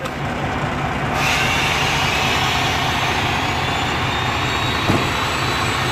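Semi-truck tractor's diesel engine idling steadily, with a steady hiss joining in about a second in.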